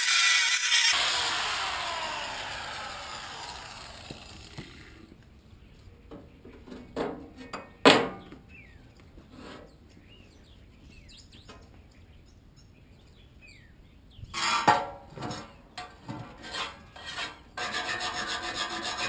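A handheld electric cutting tool runs at full speed, is switched off about a second in and winds down over a few seconds with a falling whine. After that, cut pieces of steel sheet clank and knock on the steel table, with one sharp loud clank about eight seconds in and a cluster of knocks later, then a steady rasping scrape near the end.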